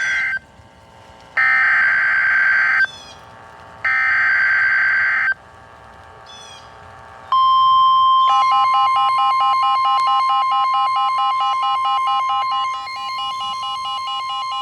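Emergency Alert System header: the tail of one screeching digital data burst, then two full bursts about a second apart. A long steady alert tone follows, and a second, rapidly pulsing alarm tone joins it about a second later. Together they announce a severe thunderstorm warning.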